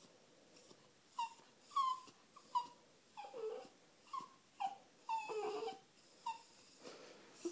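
Old Bichon Frise whining in greeting: a string of about eight short, high whimpers, several sliding down in pitch, between about one and six seconds in.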